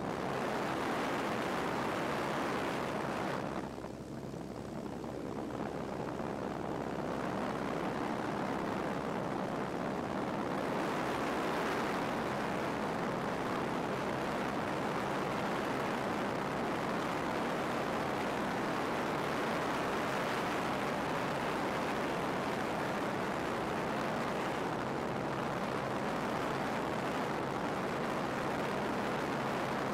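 Steady drone of a light aircraft in flight: engine, propeller and rushing air heard from inside the cabin. It briefly dips in loudness about four seconds in.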